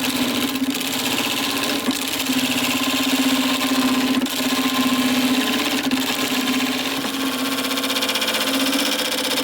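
Woodworking lathe running with a steady motor hum and a constant hiss above it.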